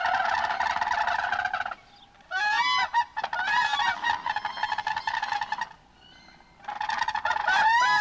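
Whooping crane calling: loud, rapid, trumpeting calls in three bouts, with short pauses about two seconds in and about six seconds in.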